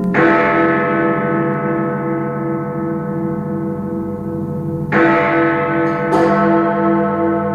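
Big Ben's great clock-tower bells struck three times: once at the start, again about five seconds in, and once more a second later. Each stroke rings on with a long, slowly pulsing hum.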